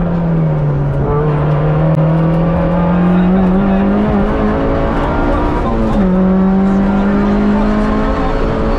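Rally car engine heard from inside the cockpit while driving a stage. It runs hard and steady, its pitch dipping about a second in, falling away near the middle and jumping back up about six seconds in as the car lifts and changes gear.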